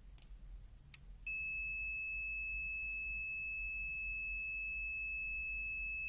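Continuity buzzer of a HABOTEST HT122A pen-type digital multimeter giving a steady, unbroken high-pitched beep, which signals a closed circuit between the test probes. Two faint clicks come just before the beep starts about a second in.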